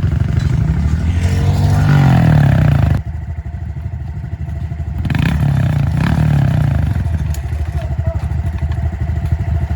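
Pit bike engine revving in the mud, rising twice with a sharp drop about three seconds in. The chain has popped off the sprocket, so the revs go unanswered by the rear wheel.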